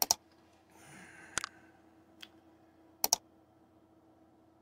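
Mouse-click sound effects from a like-and-subscribe animation: a sharp double click at the start, a single click about a second and a half in, and another double click about three seconds in. A faint swish of noise comes just before the second click.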